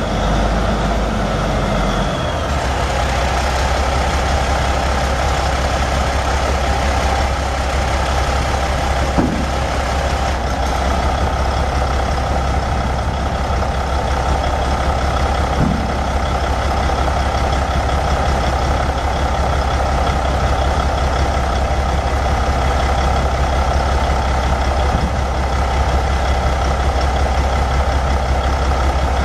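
Caterpillar 3406 14.6 L inline-six turbo diesel in a dump truck, idling steadily. Its low tone shifts about two seconds in, and there are two brief clicks later on.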